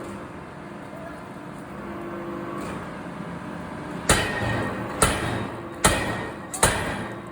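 Four heavy hammer blows on metal, a little under a second apart, each with a short ringing decay, over a steady hum of factory machinery.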